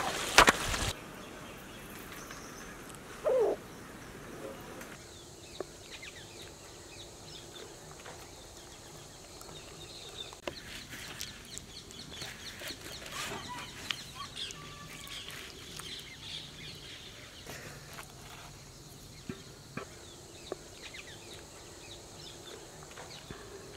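Chickens clucking in the open, with one louder call about three seconds in and many small high chirps scattered through. A short clatter in the first second as the large cooking pan is handled.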